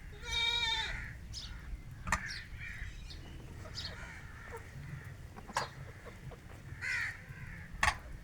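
Backyard chickens feeding, with one loud, harsh caw-like call about half a second in, then scattered short calls and a few sharp clicks.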